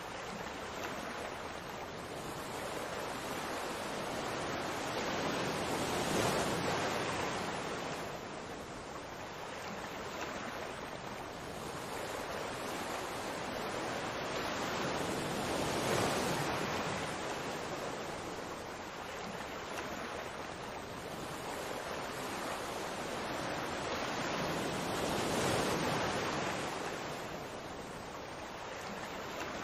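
Rushing water noise that swells and fades about every ten seconds, like waves breaking.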